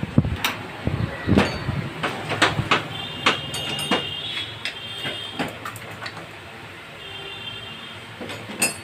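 Metal hand tools and engine parts being handled and set down, giving a string of sharp clinks and knocks, with brief metallic rings about three and a half seconds in and again about seven seconds in.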